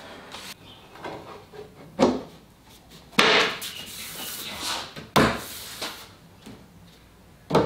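Wooden boards being handled on a timber workbench: four separate wooden knocks as pieces are set down and fitted together, the second followed by about a second of scraping as a board slides against wood.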